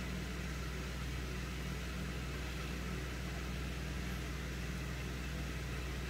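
Steady low background hum with a faint hiss, even and unchanging throughout.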